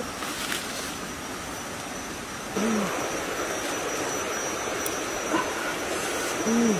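Two short, low animal calls about four seconds apart, each rising then falling in pitch, over a steady outdoor hiss.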